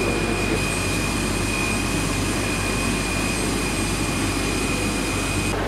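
Steady jet whine from a parked Airbus A320 airliner: one high, unchanging tone over a low, even rumble.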